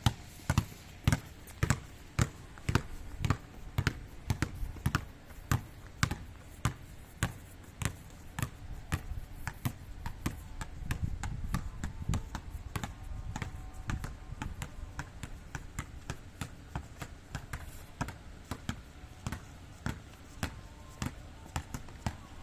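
Steady series of sharp knocks, about two to three a second, as from a repeated striking or bouncing exercise.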